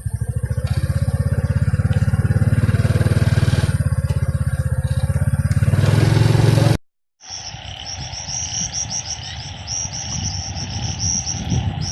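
Motorcycle engine running with an even low throb for about seven seconds, then cutting off abruptly. After a brief gap, a night chorus of calling narrow-mouthed frogs and insects follows: rapid, repeated high chirping over lower croaking.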